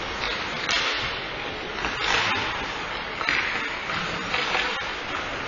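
Ice hockey game in play: skate blades scraping the ice and sticks clacking, with a sharp click and several scraping swells about a second or so apart.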